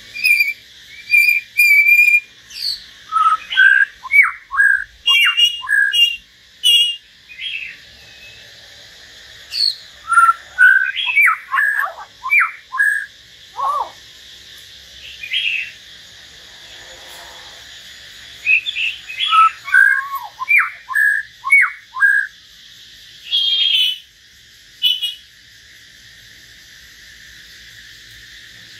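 Caged common hill myna and white-rumped shama singing: bursts of loud whistled phrases made of short, quickly repeated notes, many sliding downward, with gaps of a few seconds between bursts. A steady hiss runs underneath the song.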